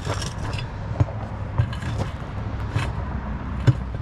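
Crowbars scraping and knocking against an ATV wheel rim as the tire is worked back onto the bead, with several sharp clinks over a steady low rumble.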